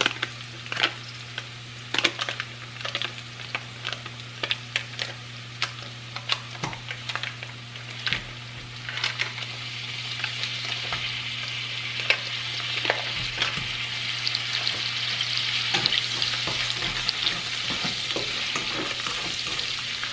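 Garlic frying in oil in a stainless steel skillet, with a stick of butter scraped in and stirred with a spatula. Sharp crackles and pops come first; from about nine seconds in the sizzle grows louder and steadier as the butter melts in the hot pan. A steady low hum runs underneath.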